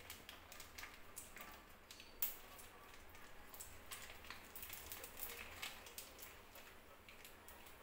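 Faint, irregular crinkling and crackling of a plastic ghee sachet being squeezed out by hand.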